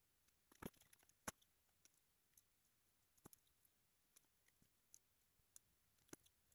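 Faint clicks and taps of plastic pipe fittings being handled, pushed together and set down on a glass tabletop: two sharp clicks in the first second and a half, then scattered lighter clicks, with stronger ones a little past three seconds and around six seconds.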